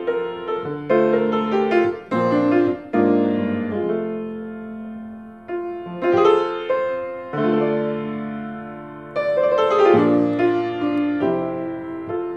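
Solo grand piano played slowly: full chords struck every second or two and left to ring and fade.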